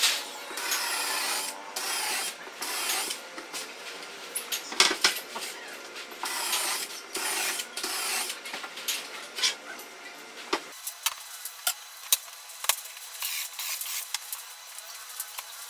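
Cordless drill working into a wooden board in short runs of about a second each, with a rasping sound. After a cut about two-thirds of the way in, only a few light knocks and clicks as wood is handled.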